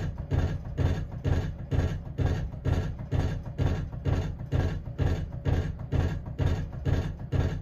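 Emerson friction-drive ceiling fan running at medium speed with a loud, regular beat of about three pulses a second. It is a noisy fan.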